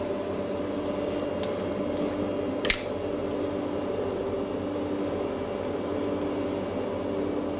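Steady machine hum with a few constant tones, and one sharp click a little under three seconds in.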